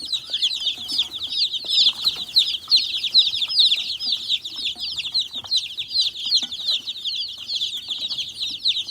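A brooder full of day-old meat chicks peeping together: a dense, constant chorus of many high, short, falling peeps.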